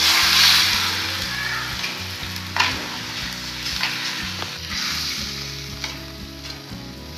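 Raw chicken pieces dropped into hot oil in an aluminium wok, hitting it with a sudden loud sizzle that then settles into steady frying. A metal ladle stirs and scrapes the pieces around the pan, with a sharp scrape about two and a half seconds in and lighter ones after.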